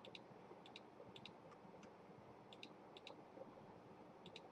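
Faint computer mouse clicks, about one every second or so and often in quick pairs, over near-silent room tone.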